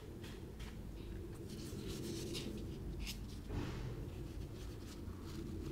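Light scratching and tapping of hands handling a plaster-coated foam board, with a short rustling swish about three and a half seconds in, over a steady low hum.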